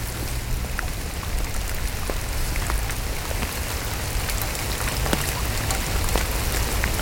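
Heavy rain falling, a steady hiss with many separate drops ticking on the plastic carrier bag that covers the camera.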